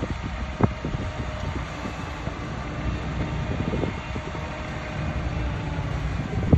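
Heavy diesel earthmoving machinery running steadily, with metal clanks and knocks, one sharp knock about half a second in.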